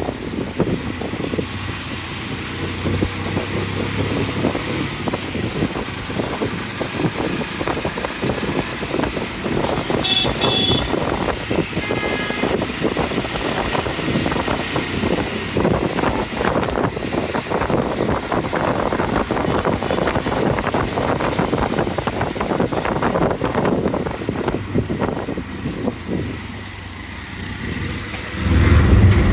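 Heavy rain on a street mixed with running vehicle engines and traffic. A brief high tone sounds about ten seconds in, and a loud low engine rumble starts near the end.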